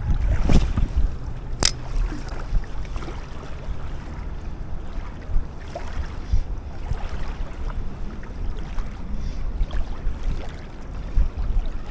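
Uneven low rumble of wind on the microphone by the water, with one sharp click about a second and a half in.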